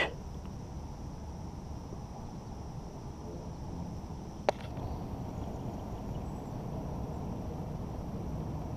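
Quiet outdoor ambience on calm water, with a faint steady high insect hum throughout. One sharp click comes about four and a half seconds in.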